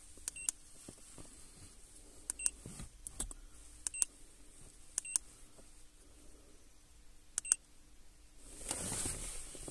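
Handheld OBD2 scan tool's keypad beeping as its buttons are pressed to move through the menus: about five short high beeps with small clicks, a second or two apart.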